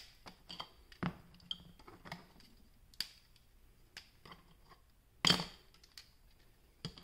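Light clicks and taps of 3D-printed plastic rings and bands being popped apart and handled, with one louder, longer scrape-like snap a little past five seconds in.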